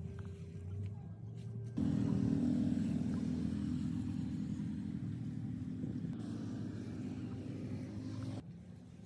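A motor, likely a power tool, runs at a steady speed for about six seconds. It starts and stops abruptly.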